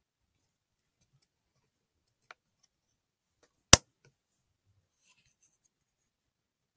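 A single rifle shot, picked up by the riflescope's built-in microphone as one short, sharp crack about four seconds in: a head shot at a wild boar. A much fainter click comes a little over a second before it.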